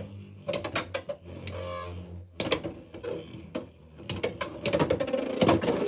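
Two Beyblade X spinning tops clattering in a plastic stadium: rapid clicks and knocks as they collide and grind along the stadium's geared rail, over a low steady hum that stops about two and a half seconds in. The clicking grows busier near the end.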